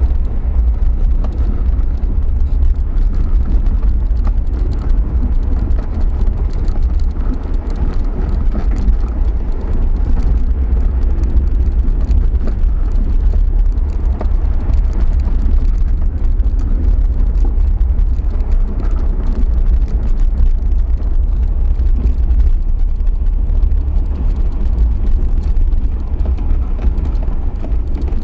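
Inside the cabin of an Isuzu VehiCross driving on a dirt road: a steady, deep rumble of engine and tyres on gravel.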